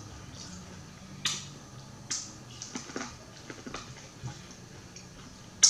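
Close-up eating sounds of biting and chewing corn on the cob: a handful of short, crisp, wet clicks and smacks spaced about a second apart, the sharpest near the end, over a faint low hum.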